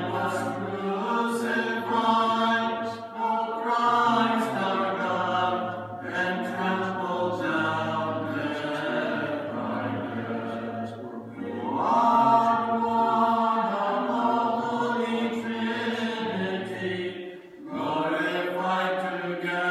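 Church chanters singing an antiphon of the Orthodox Divine Liturgy, a cappella, in phrases with short breaks between them, over a low held drone note.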